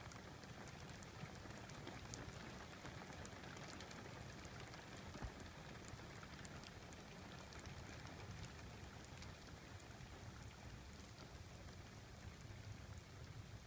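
Steady, faint rain falling, with scattered drops ticking close by and a couple of sharper taps about two and five seconds in.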